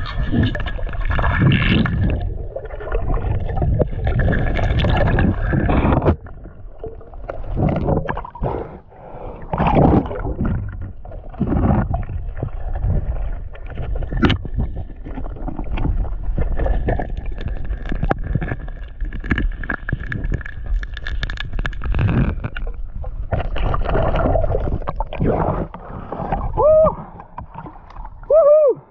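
Muffled underwater water noise and irregular knocks as a spearfisher swims and moves, heard through a waterproof camera housing. Near the end the camera comes out of the water, with two short swooping gurgles.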